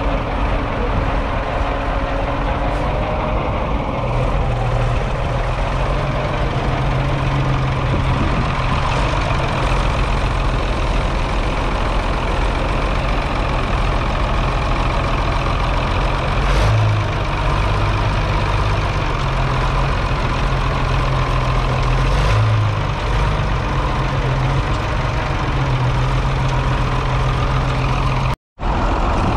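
1976 Muir-Hill 121 Series II tractor's 6.2-litre six-cylinder diesel engine running at low, steady revs as the tractor drives slowly across grass. The sound cuts out abruptly for a moment near the end.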